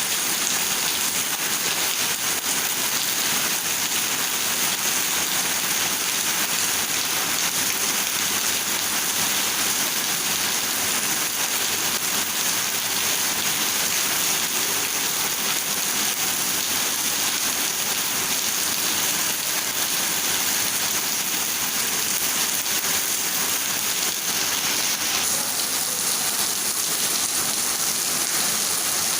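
Rain falling steadily, an even, continuous hiss of drops with no letup.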